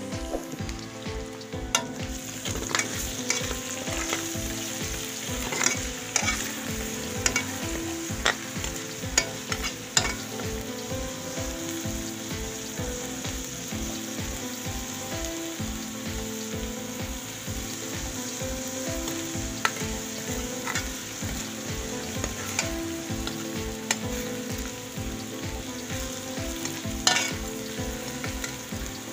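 Chopped onions and ginger-garlic paste sizzling steadily in hot ghee in a steel pan. A metal ladle clicks and scrapes against the pan as they are stirred, most often in the first ten seconds and once sharply near the end.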